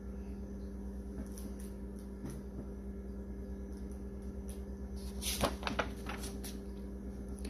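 A picture-book page being turned: a short burst of papery rustling and handling about five seconds in, over a steady low hum.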